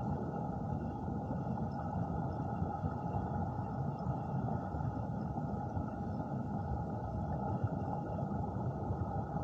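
Steady, muffled rush of stream water heard underwater, mostly low in pitch with the highs dulled.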